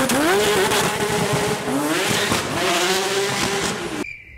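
Toyota GR Yaris 1.6-litre three-cylinder engine and exhaust under hard acceleration. The revs climb, drop at a gear change about a second and a half in, then climb again, over a loud rush of noise. The sound cuts off abruptly near the end, leaving a repeated high beep.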